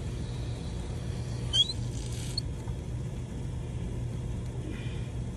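Water pump motor running with a steady low hum while the pressure system is brought back up. About a second and a half in there is a brief, high squeak, with a fainter one shortly after.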